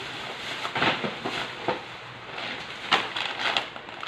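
Plastic bags crinkling and rustling as items are handled and pulled out of a cardboard box, with irregular sharp crackles and a louder burst of crackling about three seconds in.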